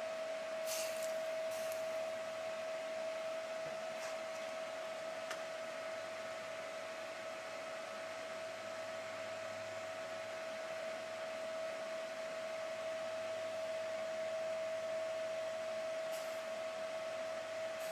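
Small engine running at a steady speed: an even whine on one constant tone over a hiss, with no change in speed. A few faint clicks near the start.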